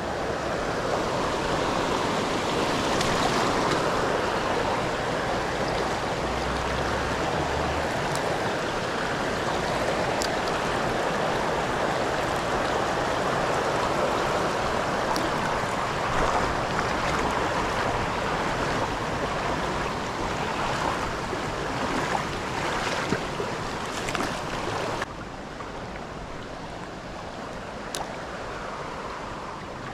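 Shallow river water rushing over rocks and riffles, a steady hiss with a few faint clicks over it. About 25 s in it drops suddenly to a quieter flow.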